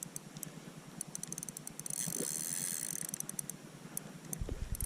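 Fishing reel's drag clicking in quick bursts as a hooked carp pulls line off the spool. A low rumble comes in near the end.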